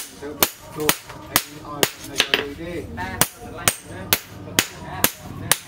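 Hand hammer striking a steel knife blade on an anvil in a steady rhythm, about two sharp blows a second.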